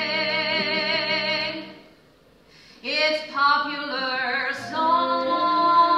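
A woman singing in a theatre, heard from the audience. She holds a long note with wide vibrato that ends about a second and a half in, and after a short pause starts a new phrase.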